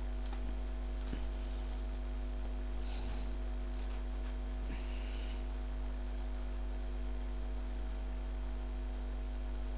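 Steady low electrical hum with a few faint steady tones above it: mains hum picked up by the recording setup. A faint, even high ticking runs about four times a second.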